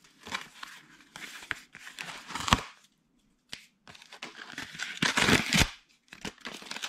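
Packing material crinkling and tearing as parts are pulled out of the box, with scattered clicks and knocks. There is a short pause about three seconds in, then a louder stretch of rustling near the five-second mark.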